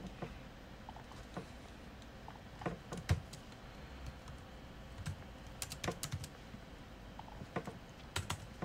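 Computer keyboard typing: scattered key clicks coming in short runs with pauses between.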